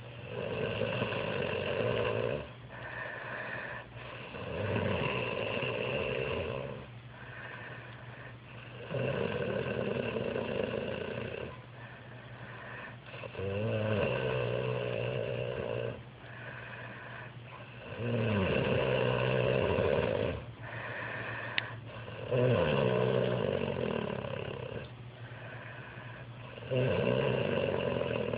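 A man snoring in his sleep in a steady rhythm: a long snore on each breath, about every four and a half seconds, with quieter breathing between. A single short click about three-quarters of the way through.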